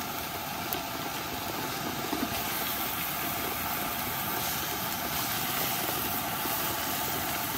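Steady rain falling on a tent, an even hiss with no let-up.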